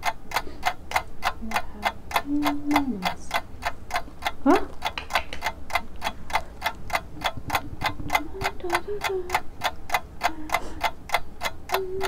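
Steady, fast clock ticking, about three and a half ticks a second, the ticking of a countdown timer.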